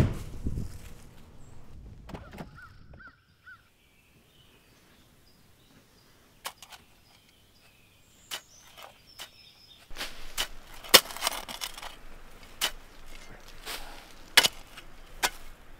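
A sharp knock at the very start, then faint bird chirps over near quiet. From about ten seconds in, a shovel digs into leaf-covered soil: a run of short scraping crunches at irregular intervals.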